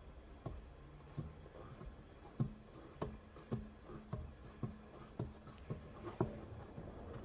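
Light, regular ticking, about two ticks a second, over a faint low hum.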